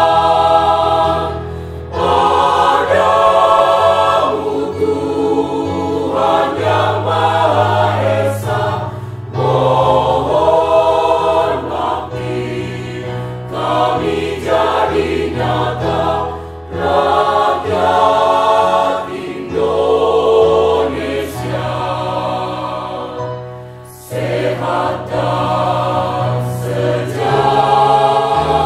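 Mixed choir of men and women singing together in parts, in phrases separated by short breaks; there is a brief drop about 24 seconds in before the singing resumes.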